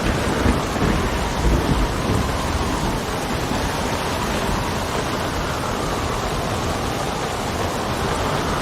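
Steady heavy rain with a low rumble of thunder underneath, and wind blowing through it with a faint wavering whistle.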